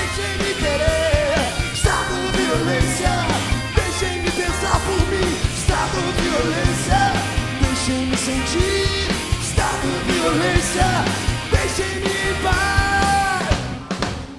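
Live punk rock band playing loudly: drums, distorted electric guitars and bass with a man's sung and shouted vocals. The song ends abruptly near the end.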